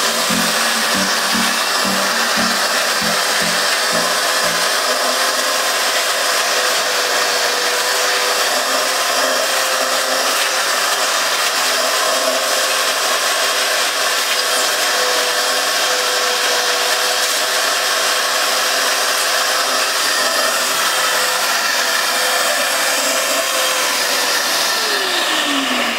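Wet/dry shop vacuum running steadily with a constant whine as its hose sucks sawdust out of a cut subwoofer box. Near the end the motor's pitch drops quickly as it winds down.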